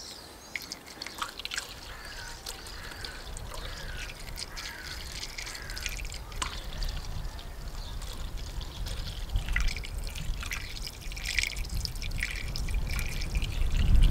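Engine coolant pouring from a plastic jug through a funnel into a car radiator: a faint, continuous trickle of liquid.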